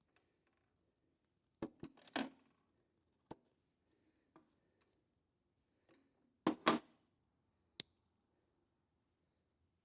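Hydraulic cylinder parts being handled and set down: a few short knocks and clicks about two seconds in, a louder cluster of knocks about six and a half seconds in, and one sharp click just after.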